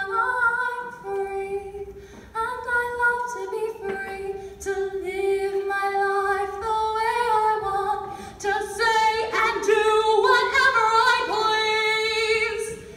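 A girl singing solo into a microphone, in long held notes with no clear accompaniment. The last few seconds climb higher and louder, with vibrato, and break off just before the end.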